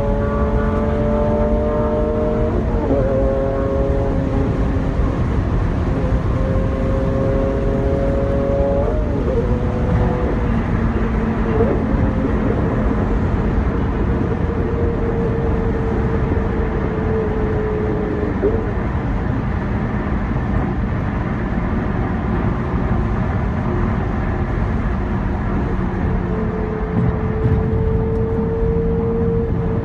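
Car engine pulling on a freeway, its note climbing and then dropping at gear changes about three and nine seconds in, then holding steady and rising again near the end. It is heard from inside a moving car, over steady road and wind noise.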